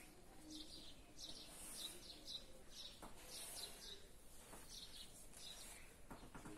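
Faint bird chirping, short calls repeating about every half second, with a few light taps of chalk on a blackboard.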